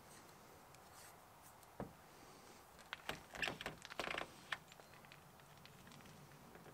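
Faint handling sounds of a tape measure and pencil being used on the car's rear deck lid: a single click about two seconds in, then a quick run of small clicks and scrapes a second later.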